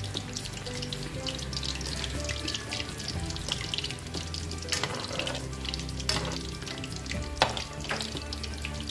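Spring rolls deep-frying in a wok of oil on low heat, a steady crackling sizzle, while a slotted metal ladle stirs and turns them, with a few short knocks of the ladle against the pan.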